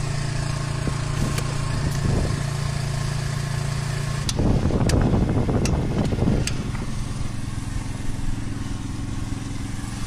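An engine running steadily. For about two seconds near the middle, a louder rushing noise with a few sharp clicks.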